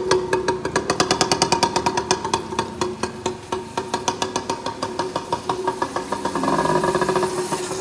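Small mini-bike engine running with a fast, even popping beat that thins out a little in the second half.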